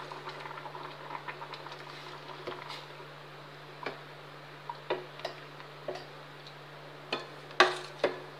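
Metal spoon clinking and knocking against a steel pot while a thick curry is stirred: scattered sharp taps, the loudest two near the end, over a steady low hum.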